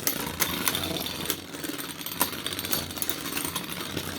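Two 3D-printed Beyblade spinning tops whirring in the stadium and clashing, with repeated sharp clicks as they hit each other.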